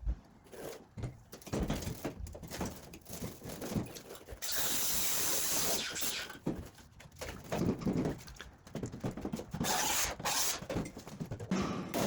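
Sped-up sounds of bodywork tools working a steel quarter panel off a car body: irregular bursts of noise and knocks, with a steady hiss from about four to six seconds in.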